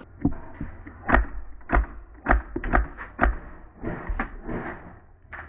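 An irregular run of sharp clicks and knocks, several of them with a low thud, coming about two a second through the middle and thinning out near the end.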